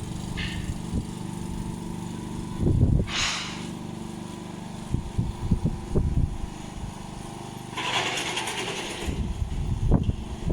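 Lawn mower engine running steadily, with two short hissing noises, one about three seconds in and a longer one near eight seconds, and a few knocks.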